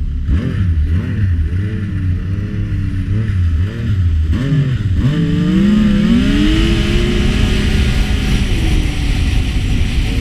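Snowmobile engine revving, its pitch rising and falling several times over the first few seconds. From about five seconds in it climbs steadily as the sled accelerates, then holds a steady high note.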